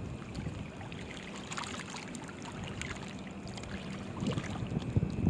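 Small waves lapping at the bank: a steady low rush of water with faint scattered ticks.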